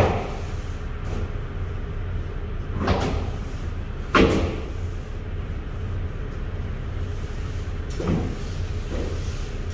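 Metal knocks and bangs echoing inside an empty semi-trailer as something is handled at its front end: a loud bang at the start, another about four seconds in, and softer ones around three and eight seconds in, over a steady low hum.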